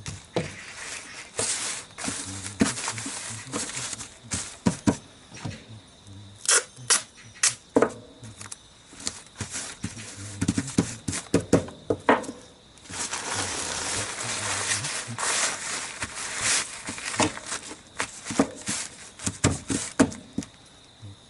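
Scooter seat-cover repair by hand: irregular sharp clicks and snaps, with a stretch of rustling, rubbing noise about two-thirds of the way through, like material being cut, torn and handled. A thin steady high tone, like insects, sounds underneath.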